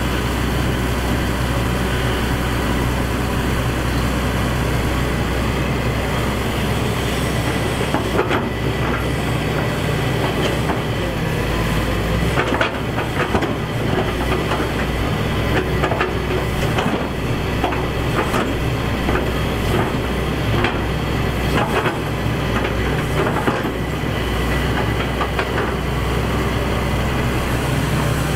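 Excavator's diesel engine running steadily under load, with a run of irregular metallic clanks and knocks from about eight seconds in until near the end.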